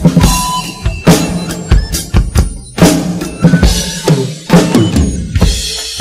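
Acoustic drum kit played with sticks in a steady beat: bass drum, snare and cymbal hits over a pop backing track, whose melody plays underneath without vocals.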